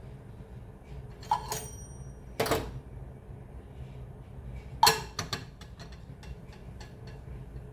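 Microwave oven running with a steady low hum, with three sharp knocks of kitchenware about one, two and a half and five seconds in; the knock near five seconds is the loudest, and the first is followed by a brief high ringing clink.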